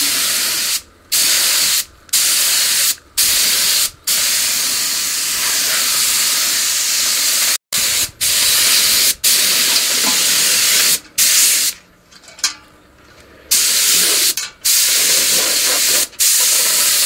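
Compressed-air paint spray gun hissing in repeated bursts as the trigger is pulled and released. Most bursts last about a second with short breaks between them, and a few run longer, while black paint is sprayed onto a steel mesh grille guard.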